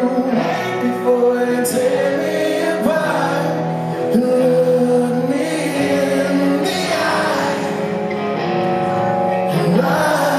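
Live rock band playing a slow song, with a male lead singer's voice over the band; his voice rises into a new line near the end.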